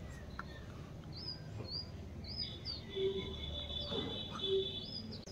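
Small birds chirping: short high chirps repeating about twice a second, with a longer high trill in the middle, over a steady low background rumble.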